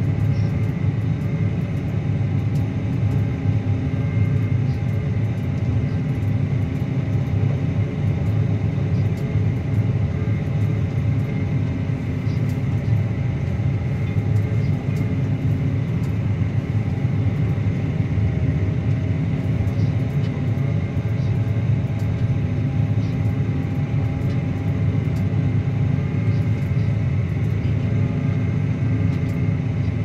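Claas Axion 850 tractor's six-cylinder diesel engine running steadily under the load of a reversible plough in work. The low rumble holds even throughout, with a faint steady high whine over it.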